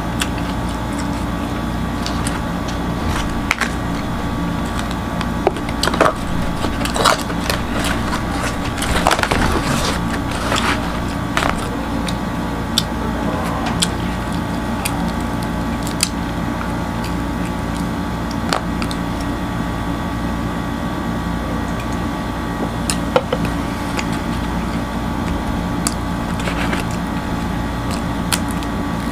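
Crusty baked flatbread (kubos) torn apart by hand and eaten close to the microphone: irregular crackling and crunching, with the densest run a few seconds in and scattered sharp clicks after. A steady hum runs underneath.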